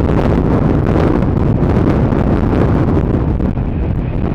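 Jet airliner engines, a loud steady rushing roar.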